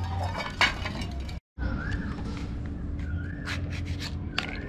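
An animal's short wavering call, three times, over a steady low hum, with light clicks and rattles of matchboxes being handled during the second half.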